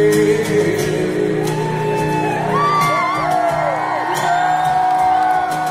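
Live acoustic rock band playing, several acoustic guitars strumming, while voices whoop and call out over the music from about a second and a half in, one voice holding a long note near the end.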